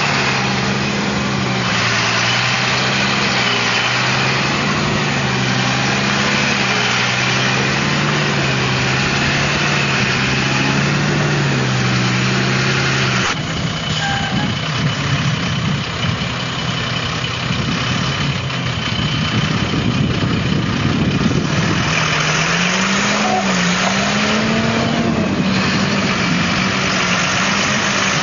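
Rába H14 military truck's diesel engine running at a steady idle. After a cut about halfway through, the truck drives over cobblestones with rumbling road noise, and the engine note rises and falls.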